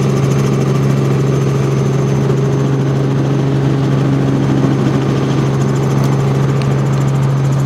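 Helicopter in flight heard from inside the cabin: a steady drone of engine and rotors with a constant low hum.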